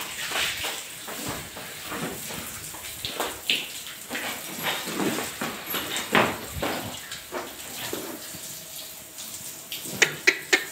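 Irregular splashing and sloshing of water on a wet concrete floor.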